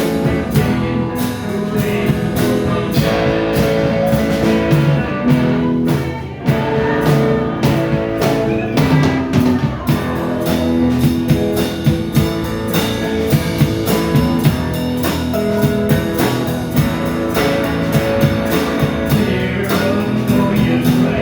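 Band music: guitars playing over a drum kit that keeps a steady beat.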